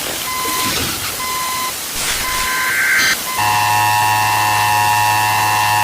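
Emergency Alert System-style broadcast interruption: static hiss with short on-off beeps, then about three and a half seconds in a loud, steady multi-tone attention signal comes on and holds.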